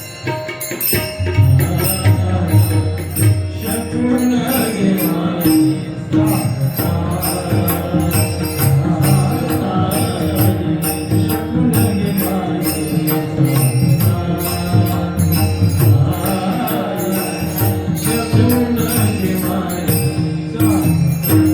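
Marathi kirtan devotional song: chant-like singing with sustained accompaniment, and metallic hand-cymbal strokes keeping a steady beat.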